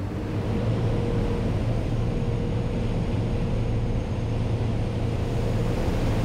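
Twin MAN V8 marine engines driving MJP 350X water jets, run up under throttle as the boat accelerates. It is a steady low engine drone over the rush of the jet wash.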